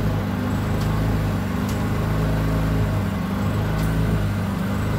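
An engine or motor running steadily with a low, even hum, with a few faint clicks over it.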